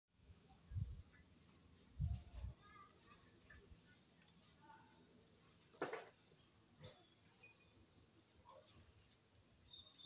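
Crickets trilling in a steady, unbroken high drone. A few dull low thumps come in the first seconds, and a single sharp click comes about six seconds in.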